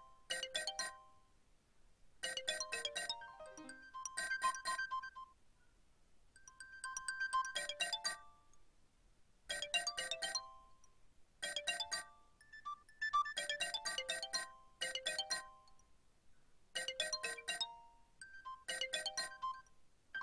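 Nokia 6610 ringtone playing: short phrases of quick, bright synthesized notes, each about a second long, repeating every couple of seconds with gaps between them.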